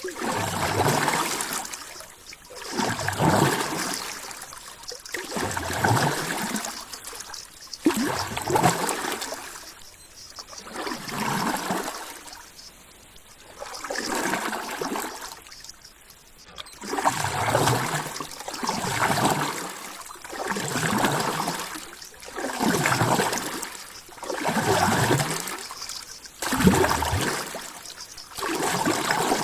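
Water sloshing and lapping in regular surges, swelling and fading about once every two seconds.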